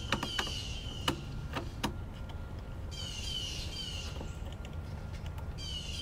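A screwdriver clicks a few times against a circuit breaker's terminal screw while the wire is tightened in, mostly in the first two seconds. A songbird sings short phrases of fast chirps three times: at the start, about three seconds in, and near the end.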